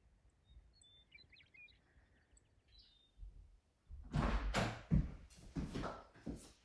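A few faint bird chirps, then about four seconds in, the cabin's front door being opened: clicks of the latch and handle, knocks and thuds as the door swings and he steps in.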